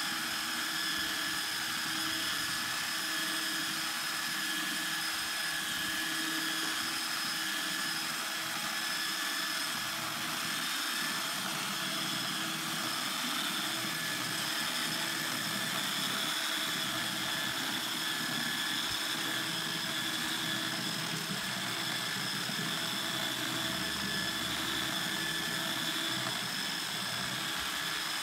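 Electric power sander running steadily against a wooden table top, a continuous motor whine with the rasp of abrasive on wood.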